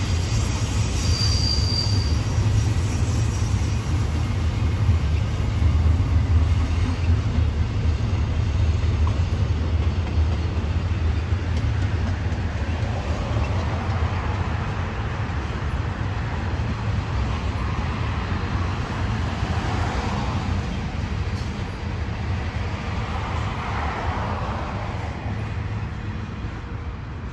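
Double-stack intermodal freight train's container well cars rolling past: a steady low rumble of wheels on the rails, with a brief high-pitched wheel squeal about a second in. The sound eases slightly near the end.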